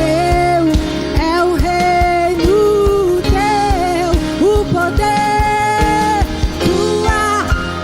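Contemporary Christian worship song in Portuguese: a singer holding long, gliding notes over a full band with a steady drum beat.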